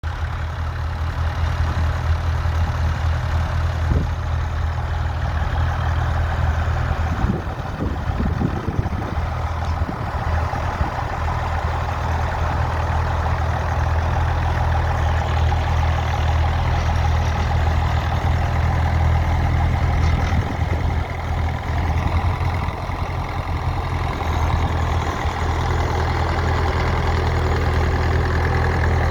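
Ferguson FE35 tractor engine running steadily with a low, even drone.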